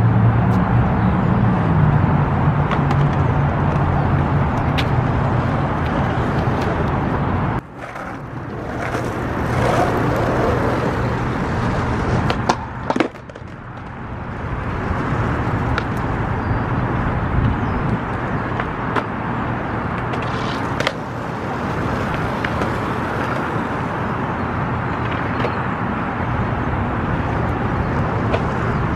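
Skateboard wheels rolling on concrete, with occasional sharp clacks of the board, over a steady background of city traffic.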